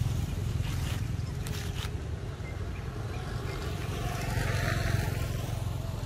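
A steady low rumble, with a faint hiss that swells slightly about four seconds in.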